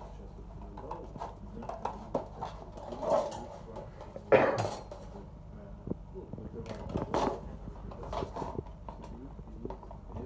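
Hand tin snips cutting galvanized sheet steel: a run of short crunching snips and clicks as the blades close through the metal, with one louder noise about four and a half seconds in.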